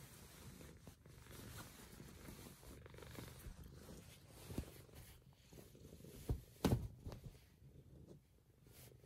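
Maine Coon cat purring steadily, a soft low rumble. A few short bumps cut through it, the loudest about two-thirds of the way in.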